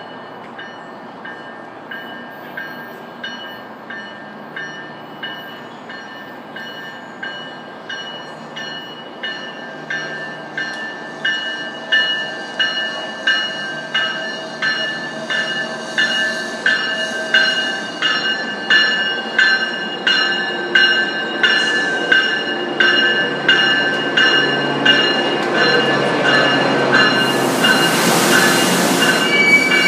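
Tri-Rail commuter train arriving, its bell ringing steadily at a little over one strike a second and growing louder as the train approaches. Near the end the passing train adds a loud rush of noise lasting about two seconds.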